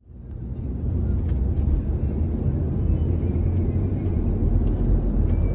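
Steady low rumble of a car on the move, heard from inside the cabin, fading in over the first second.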